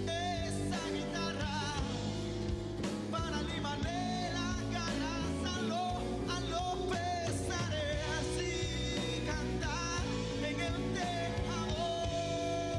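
Live band music: a man singing with vibrato over strummed acoustic guitar, with a drum kit and cymbals.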